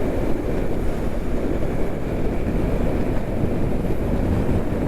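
Steady wind rush and road noise of a motorcycle ridden at highway speed, picked up by the rider's microphone as an even low rumble with no breaks.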